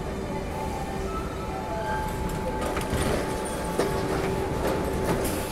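Paris Métro train standing at the platform with its doors open: a steady rumbling hum with two held tones, and short clicks and knocks in the second half as passengers step aboard.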